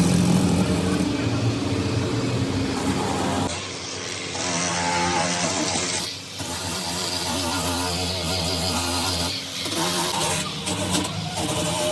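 A motor running steadily, its sound changing abruptly about three and a half seconds in and again near six seconds.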